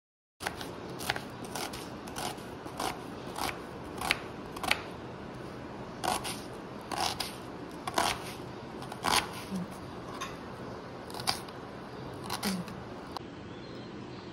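Food being cut with a blade: an irregular series of sharp clicks, about one every half second to a second, over a steady background hiss.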